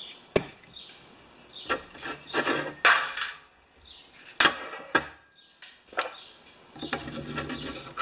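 Metal parts of a disassembled electric PTO clutch being handled, set down and worked on a steel workbench: scattered sharp knocks and clinks, about seven in all, with scraping and rubbing between them.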